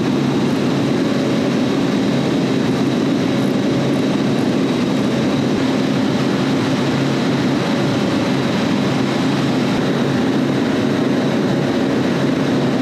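Steady, loud drone of running commercial refrigeration machinery, with a constant low hum under it.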